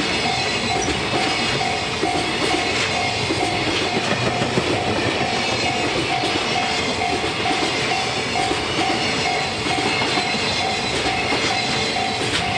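Freight train of container wagons rolling past close by: steady wheel-and-rail rolling noise with clatter over the rail joints. Over it, a tone repeats evenly at about two beats a second.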